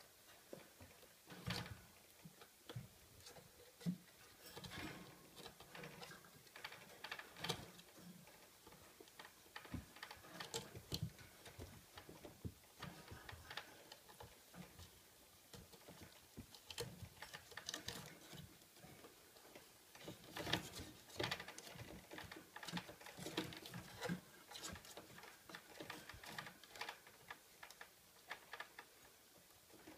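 Schipperke puppies scrambling in a wooden whelping box, their claws scratching and tapping on the boards and the wire pen panels: faint, irregular clicks and scrapes.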